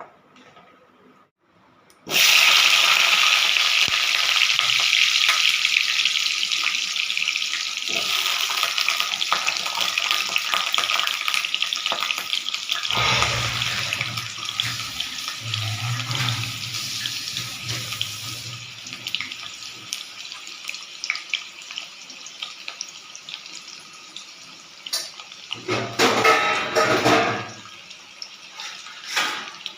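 Potatoes frying in hot mustard oil, sizzling loudly: the hiss starts suddenly about two seconds in and slowly dies down. A few low thuds come midway and near the end.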